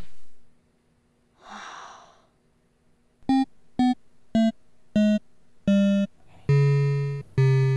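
Synthesizer music cue: a short breathy hiss, then five short staccato notes about half a second apart, each a little lower than the last, followed near the end by two longer held low notes.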